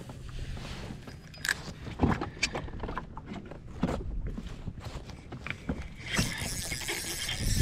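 Scattered knocks and clicks from gear being handled on a plastic fishing kayak, over a low rumble. A steady hiss joins about six seconds in.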